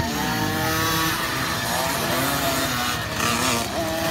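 Small 50cc two-stroke motocross bike engines revving on the track, their pitch rising and falling as the riders accelerate and shift, with more than one engine heard at once.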